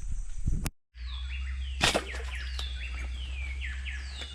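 Birds calling with quick repeated falling chirps over a steady low rumble, with a single sharp snap about two seconds in. Before that come a few handling clicks, and the sound cuts out completely for a moment just under a second in.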